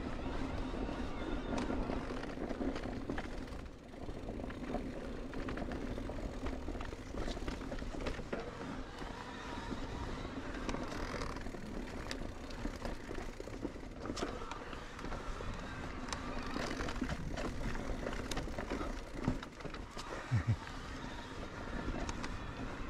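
Electric mountain bike riding a dirt trail: tyres rolling over the ground with a low rumble, a steady low hum, and scattered clicks and rattles from the bike, with a few louder knocks near the end.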